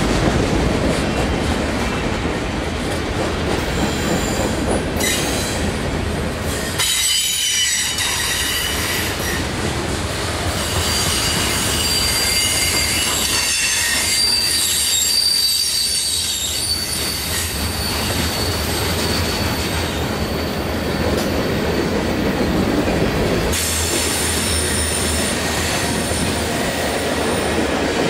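Freight train cars of boxcars and hoppers rolling past, with steady wheel rumble and rail clatter. The wheels squeal in high, thin tones from a few seconds in and again near the end.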